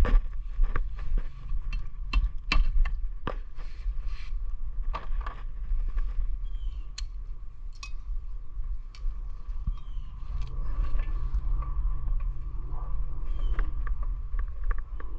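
Rubber mallet tapping on a Mercury Optimax outboard's lower unit to knock it loose from the midsection: a run of irregular sharp knocks that stop about ten seconds in.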